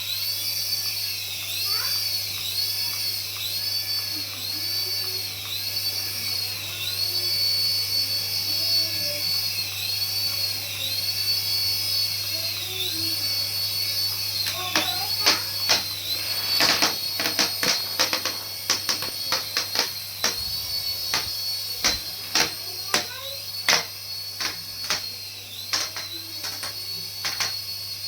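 Small electric motor of a remote-control toy whirring with a high-pitched whine that dips in pitch about once a second, over a steady low hum. From about halfway on, many sharp clicks and knocks break in.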